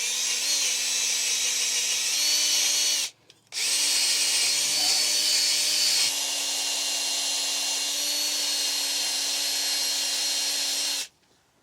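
Power drill spinning a steel wire brush against the rear hub where the brake rotor seats, cleaning it: a steady motor whine under a harsh scraping hiss. It stops for a moment about three seconds in, starts again, and runs until shortly before the end.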